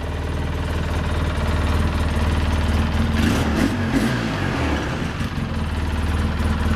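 2007 Polaris Sportsman 700 ATV engine idling steadily, with a brief rise and fall in engine speed about three seconds in.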